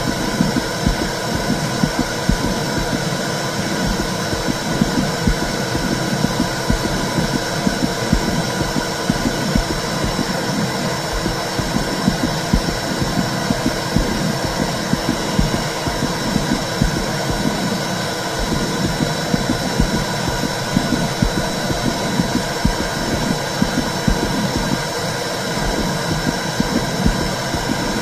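Womb sound for calming a baby: a steady low whooshing rumble with an uneven pulsing in it, like blood flow and heartbeat heard from inside the uterus.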